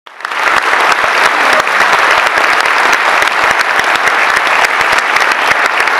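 An audience applauding, many hands clapping steadily and loudly.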